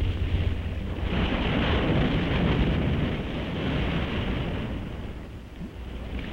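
Ocean surf crashing and washing, a heavy rumble and hiss that swells about a second in and dies down near the end.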